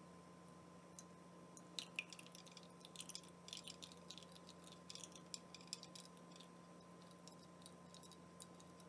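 Faint, irregular light clicks and clinks of a spoon against a glass with ice cubes, thickest in the middle few seconds, over a faint steady electrical hum.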